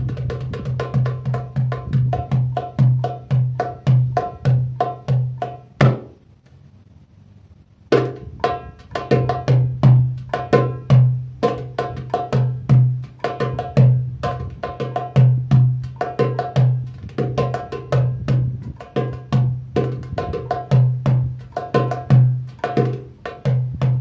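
Darbuka (goblet drum) played solo in a fast improvised rhythm, deep bass strokes from the centre of the head mixed with sharp high rim strokes and quick rolls. About six seconds in, one hard stroke is followed by a pause of about two seconds before the rhythm starts again.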